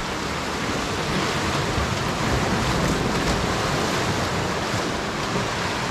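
Steady rush of sea surf breaking and washing over shoreline rocks, with wind on the microphone.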